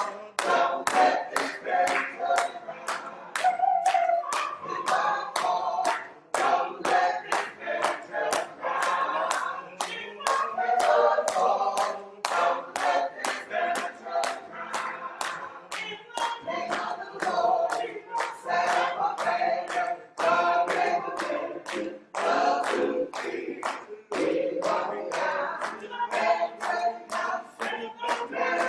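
Gospel choir singing a cappella, with steady hand clapping on the beat at about two claps a second.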